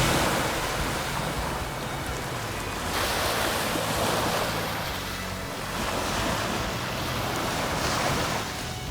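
Small sea waves washing onto the beach, the surf rising and falling every few seconds, with some wind on the microphone.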